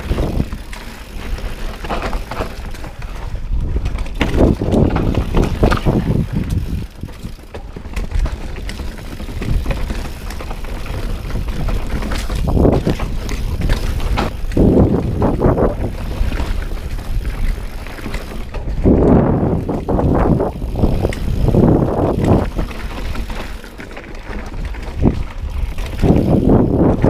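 Mountain bike ridden fast over a dirt and root singletrack: tyres rolling and the bike's frame and parts rattling, rising and falling in uneven surges, over a constant low rumble of wind on the microphone.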